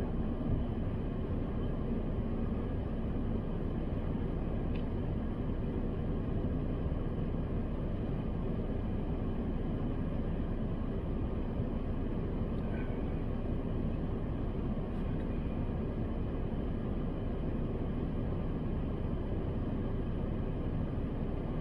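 Steady low rumble and hiss inside a car's cabin, unchanging throughout.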